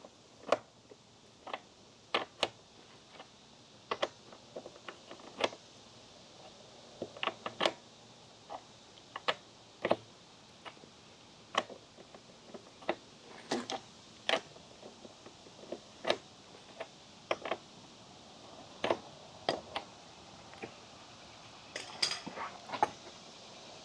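A wrench clicking and clinking against metal fittings on a motorcycle while a fitting is loosened for chain adjustment: scattered sharp metallic clicks, some in quick pairs, every second or two.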